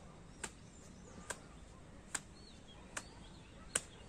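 Hands clapping slowly and evenly: five single claps, a little under a second apart.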